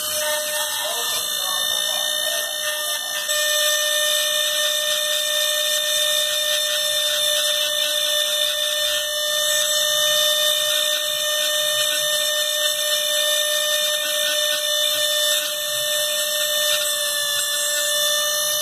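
Handheld rotary tool running steadily with a high, even whine as its bit works the small metal handlebar levers of a miniature model motorcycle.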